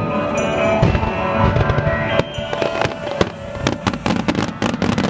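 Music playing, then from about halfway in a rapid string of fireworks shells bursting, many sharp bangs and crackles close together, with the music still under them.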